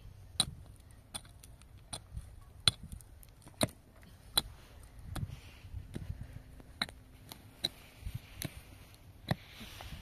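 A run of sharp, irregular clicks and knocks, roughly one or two a second, with soft low thuds between them.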